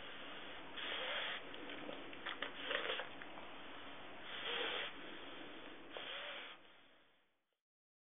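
Pug breathing noisily: four loud rasping snorts, one every second and a half or so, over a steady wheezy rasp, stopping about seven seconds in. It is the laboured breathing of an extremely flat-faced dog with an obstructed airway.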